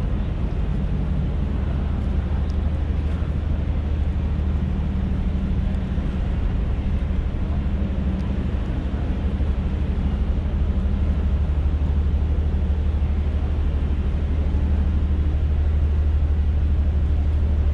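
Steady low engine-like rumble of street traffic with a constant hum, growing slightly louder near the end.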